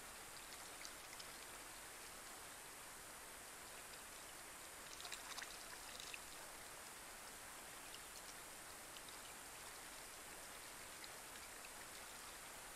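Faint light rain falling on a pond: a soft steady patter with scattered individual drops, and a short cluster of closer, louder drips about five seconds in.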